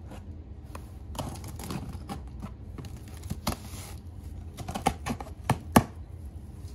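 Cardboard shipping box being handled and tipped while its packing tape is cut with a box cutter: scattered clicks and scrapes of cardboard, with a few sharp knocks about five to six seconds in.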